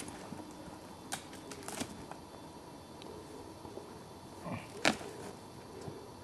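Scattered rustling and crackling of boots and a deer carcass being handled and shifted on dry forest floor litter, with a single sharper knock about five seconds in.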